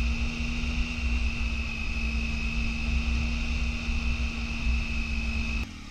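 Triumph Tiger 800 XCA adventure motorcycle riding at steady speed on a dirt road: a steady engine hum under heavy wind rumble on the microphone. It cuts off abruptly near the end.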